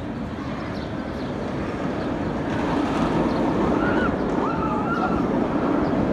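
Raptor, a Bolliger & Mabillard inverted roller coaster: the train running along the track with a rushing roar that builds over the first three seconds, then holds steady.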